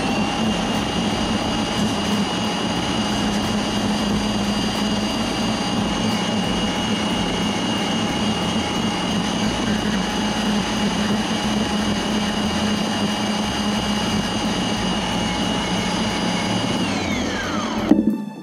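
Bandsaw running steadily at full speed with a high whine while the camera's metal strap lug is held against the blade to cut it off. Near the end the saw is switched off and its whine falls away as it spins down, with a sharp knock just before it stops.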